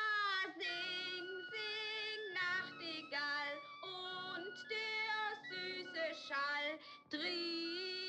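A woman sings a German song in a high voice, in short broken phrases with a long held note from about seven seconds in. Flute and piano accompany her. The singing is deliberately off-key, a comic imitation of bad singing.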